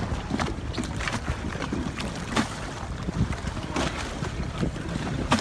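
Wind buffeting the microphone beside choppy water, a steady low rumble, with several short sharp knocks scattered through it, the loudest near the end.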